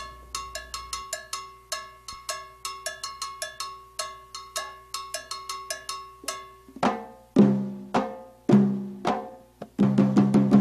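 Latin percussion ensemble playing: a fast, even pattern on a ringing bell, then congas come in about seven seconds in with deep open tones and slaps.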